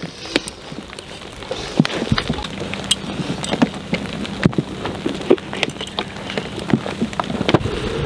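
Rain falling, with many drops ticking irregularly, growing heavier about two seconds in.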